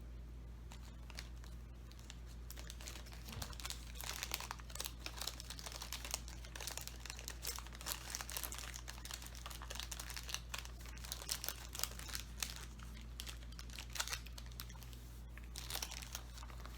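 Plastic snack-bar wrapper crinkling in irregular bursts of crackles, over a low steady hum.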